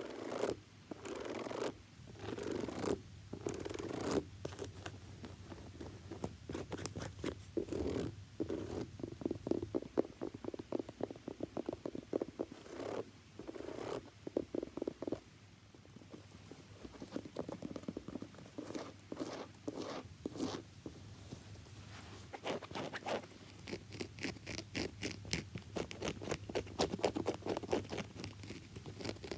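Tapping and scratching on a shoe for ASMR: quick runs of small clicks and scratchy strokes with short pauses between them.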